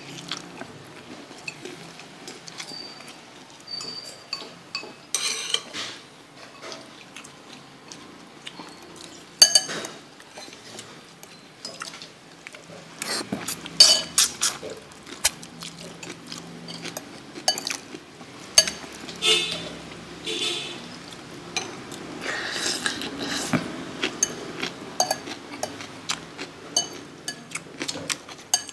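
Metal fork clinking and scraping against a ceramic soup bowl, a string of sharp, irregular clinks, some ringing briefly.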